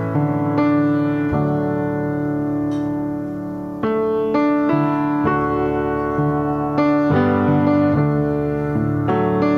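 Slow piano music: sustained chords, with a new chord struck every second or two.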